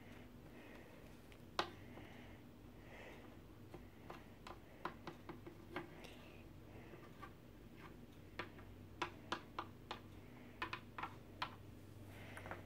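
Faint, irregular light clicks and taps of a small plastic Littlest Pet Shop figure being handled and tapped along a wooden tabletop. They are sparse at first and come more often from about four seconds in.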